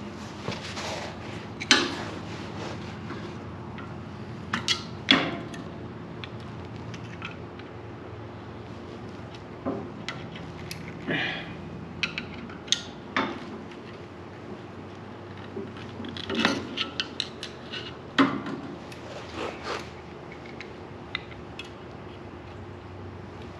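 Irregular metal clinks and knocks of screwdrivers against a sawmill pulley as a tight drive belt is levered onto it, a few strikes sharper than the rest.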